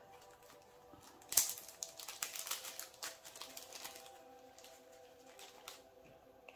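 A sharp plastic click, then a quick run of small ticks as resin diamond-painting drills rattle into a small plastic storage container, fading out after a couple of seconds.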